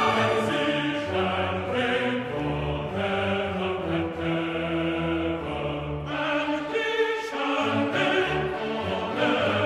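Background music: orchestral piece with choir-like voices, sustained notes changing every second or so.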